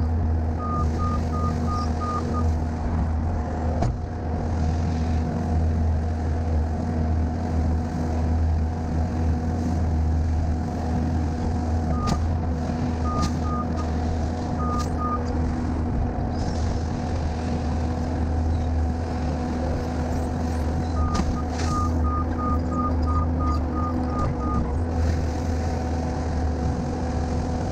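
Skid steer loader's diesel engine running steadily close by, with a backup alarm sounding runs of short, evenly spaced beeps three times: near the start, around the middle and for longer a little past two-thirds in. A few brief knocks sound over the engine.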